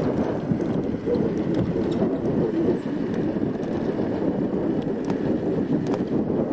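Currie Lashout electric scooter, overvolted from 24 to 36 volts, riding at speed on pavement: a steady mechanical rattle from the drive and tyres under wind on the microphone, with a few sharp clicks.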